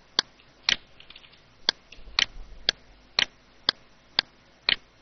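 Computer mouse button clicking, about nine sharp clicks roughly half a second apart, several of them doubled as the button is pressed and released.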